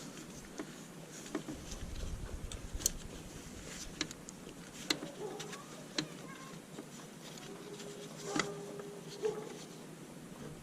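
Sparse, light clicks and clinks of hand tools on metal as bolts on a power steering pump's mounting are worked.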